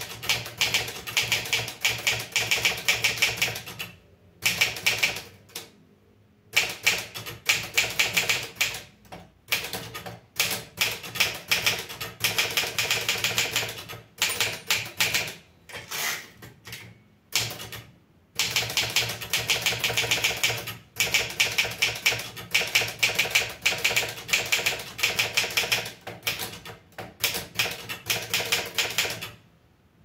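Olivetti Studio 46 manual portable typewriter being typed on: fast runs of clacking keystrokes broken by short pauses, with the carriage return lever thrown about halfway through.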